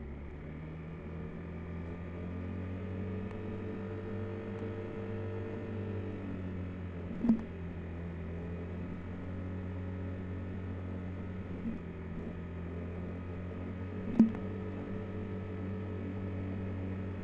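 Steady low engine hum from a vehicle cruising on the road, its pitch rising and falling slightly a few seconds in. Two short, sharp knocks stand out, about seven seconds in and again near fourteen seconds.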